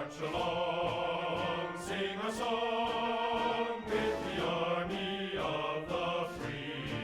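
Background music with choir-like sustained voices.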